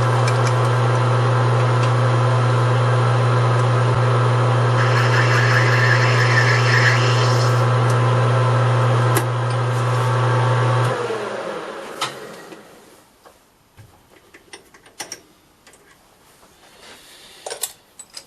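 Metal lathe running with a steady motor hum; for a few seconds in the middle a higher scraping hiss joins as the tool cuts into the brass. About eleven seconds in the lathe is switched off and winds down, followed by a few light clicks and taps.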